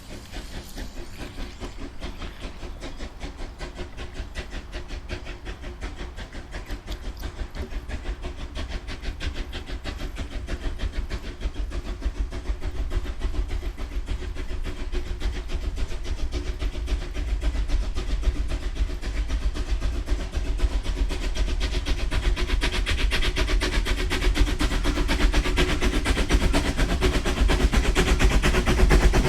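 H0-scale model train running on its track, heard close up: a fast, dense clicking of the wheels on the rails over a low rumble, growing steadily louder.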